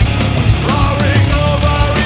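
Loud rock music with a steady beat.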